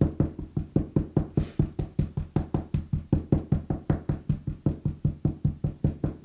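Rapid, steady tapping of an embossing ink pad onto a clear photopolymer stamp mounted on an acrylic block, about five knocks a second, each tap carrying through the tabletop.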